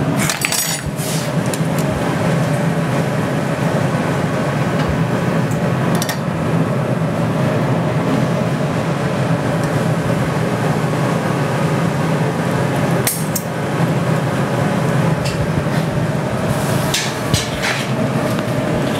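Steel glassblowing tools clink and knock against the workbench and blowpipe a handful of times: near the start, around six seconds in, around thirteen seconds, and twice near the end. Under them runs the steady drone of the glass studio's furnace and glory-hole burners and blowers.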